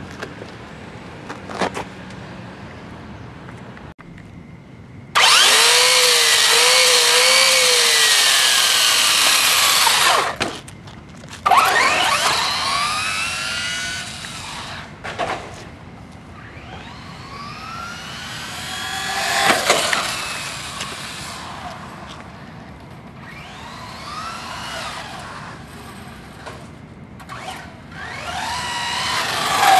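Electric motor of a Traxxas Slash 4x4 RC short-course truck whining, rising and falling in pitch as it speeds up and slows down over several runs. The loudest run starts about five seconds in and lasts about five seconds.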